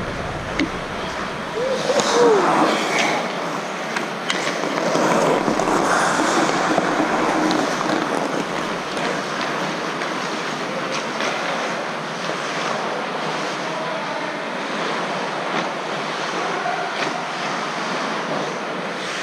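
Ice hockey in play: skate blades scraping and carving on the ice in a steady rush, with scattered sharp clacks of sticks and puck and a few shouted calls from players.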